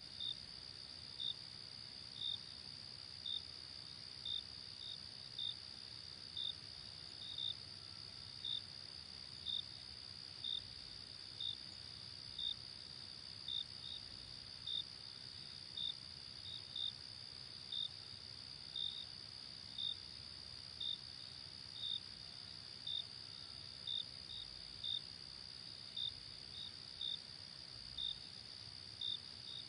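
Night insect chorus: a steady high-pitched trill from crickets, with short sharp chirps about once a second, sometimes in pairs, standing out above it.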